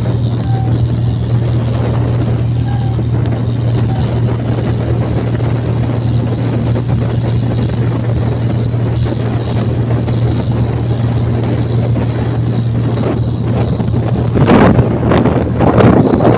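Hino H07D truck diesel engine driving a fast river taxi boat at full speed: a steady low drone with rushing water and wind noise. Wind buffeting on the microphone gets louder about fourteen seconds in.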